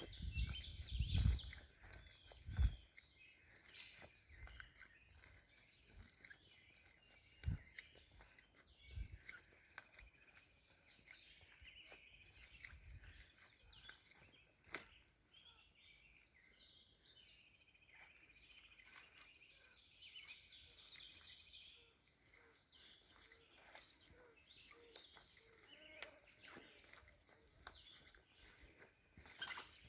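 Songbirds chirping and trilling in woodland, with several bouts of fast, repeated high notes. A few low thumps come in the first few seconds.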